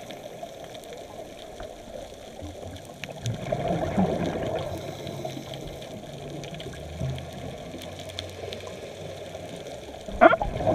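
Underwater sound through a camera housing: a steady watery rush, swelling into a gurgle of scuba exhaust bubbles about three seconds in and again near the end. A short sharp crackle just before the end is the loudest sound.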